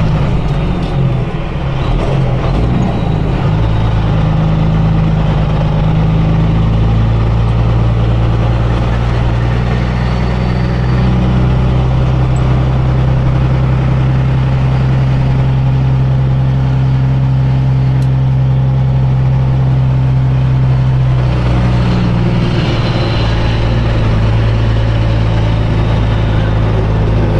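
Semi truck's diesel engine heard from the cab, running steadily at low speed. Its pitch shifts a couple of seconds in and again about twenty seconds in.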